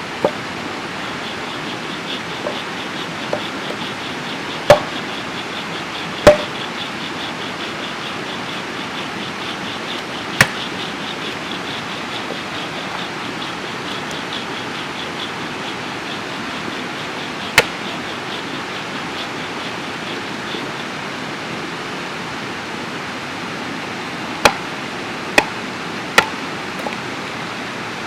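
About seven loud, sharp knocks at irregular intervals over a steady rushing noise, with a faint fast ticking in the background for most of the first two-thirds.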